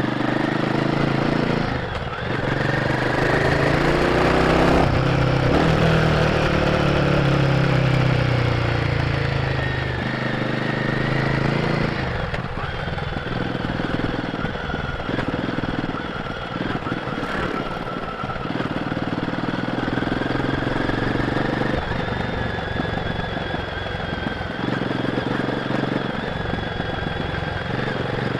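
Royal Enfield Guerrilla 450's single-cylinder engine on its stock exhaust, heard from the rider's seat while riding. The engine note rises and falls with the throttle through roughly the first ten seconds, then runs more evenly.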